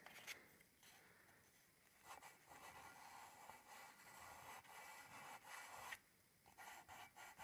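Faint scratchy strokes of a pastel stick rubbed on paper, starting about two seconds in, stopping briefly near six seconds, then starting again.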